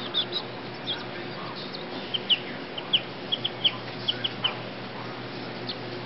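Baby chicks peeping: a run of short, high, slightly falling peeps, busiest in the middle, over a steady low hum.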